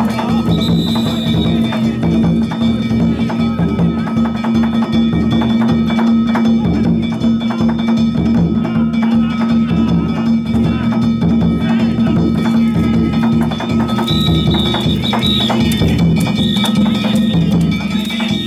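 Danjiri festival percussion: taiko drums and hand-struck gongs (kane) played together in a steady, continuous rhythm, the gongs ringing over the drum beats.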